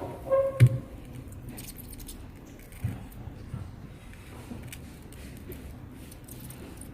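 Small metal workbench tools being handled, with light clinks and taps: one louder, briefly ringing clink about half a second in, and a couple of sharper clicks around three seconds in.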